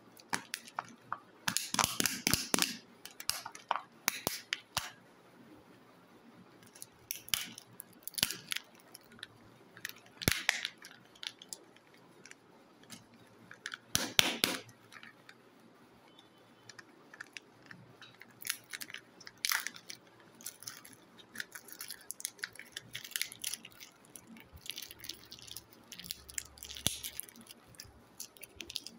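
Crinkling and crackling of plastic wrapping and the clicks of plastic surprise-egg shells as Kinder Joy-style eggs are peeled open and handled, in irregular spells with quiet gaps between.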